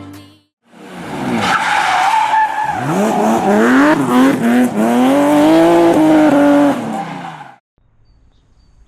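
Car engine revving up and down with tyres squealing and skidding, about seven seconds of loud, wavering noise that cuts off suddenly.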